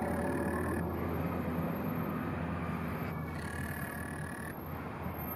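Steady low rumble of outdoor background noise with a constant low hum, and a faint high thin whine that comes in twice, briefly.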